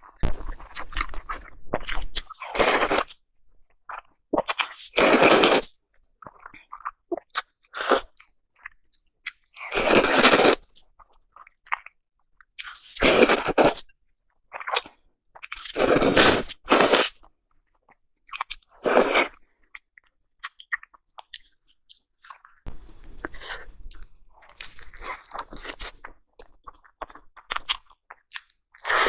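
Close-miked chewing and biting as a person eats salmon sushi: loud crunchy bites every few seconds, with softer chewing between them.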